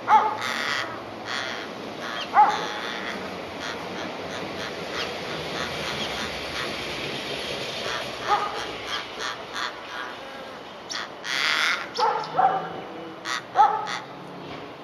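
Australian raven calling repeatedly, about six harsh calls with short sliding pitch, several of them bunched near the end. Between calls come short bursts of hissing noise.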